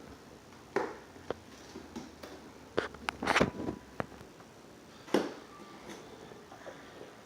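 Scattered light knocks and clicks of puzzle pieces being handled and set down, with a quick flurry of clatter about three seconds in and another sharp knock about five seconds in.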